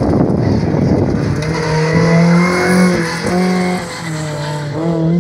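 Historic rally car sliding through a corner on a loose, dusty surface with a rough rush of tyre and gravel noise, then its engine revving hard as it pulls away, the note breaking briefly about three times and climbing higher near the end.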